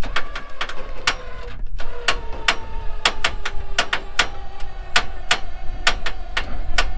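Recovery rig's lifting gear working under a running engine: irregular sharp clicks about one or two a second over a low rumble, with a faint whine that slowly falls in pitch.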